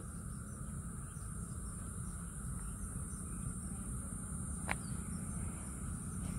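Steady chorus of insects, a continuous high buzz with a second lower buzzing band, over a low rumble. A single sharp click a little under five seconds in.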